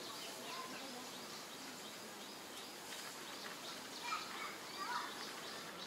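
Outdoor ambience of birds chirping steadily, with two louder short calls about four and five seconds in.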